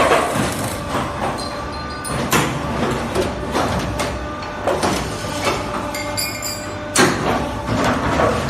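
Automatic double J lashing hook making machine running through its forming cycle: a steady mechanical hum with sharp metallic clanks about every two and a half seconds.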